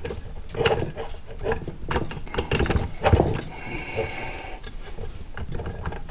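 Metal clinks and knocks from a Jeep 231 transfer case's new drive chain and sprocket being worked into place by hand, with a short metallic scraping rattle about halfway through.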